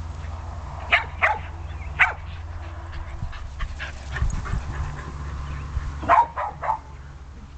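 A dog barking in short, sharp barks: about three in the first two seconds, then two or three more about six seconds in.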